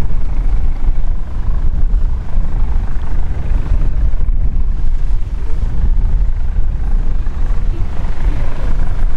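AgustaWestland AW139 twin-turbine helicopter hovering low, its main rotor giving a steady, loud, low rumbling chop.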